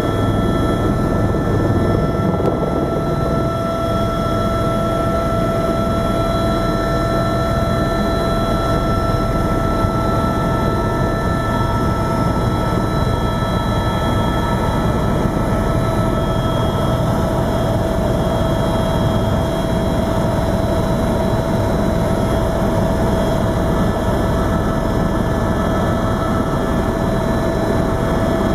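Helicopter engine and rotor heard from inside the cabin during lift-off and climb: a steady, loud rumble with constant high whining tones over it.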